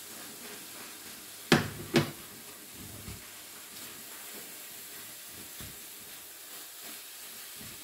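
Kefta and vegetable filling sizzling faintly in a frying pan, with two sharp knocks half a second apart about a second and a half in, and a few lighter taps after.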